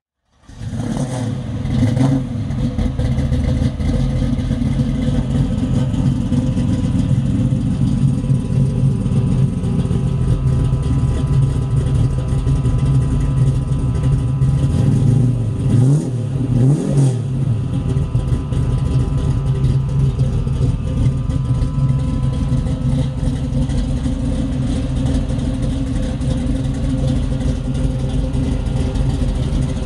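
1968 Chevrolet Camaro SS's 454 big-block V8 running steadily through its exhaust, with two quick throttle blips about halfway through.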